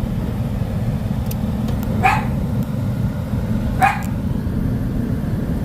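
A dog barking twice, short single barks a little under two seconds apart, over a steady low rumble.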